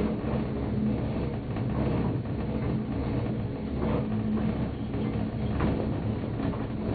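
Cabin of a 1987 Leitner six-seat gondola travelling along its rope, heard from inside: a steady low hum and rattle, with a few faint creaks or ticks.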